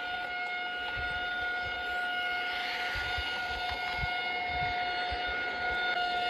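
Wisconsin's Emergency Alert System alarm: one steady, unbroken siren-like tone with a stack of overtones. Low thuds come at uneven intervals beneath it.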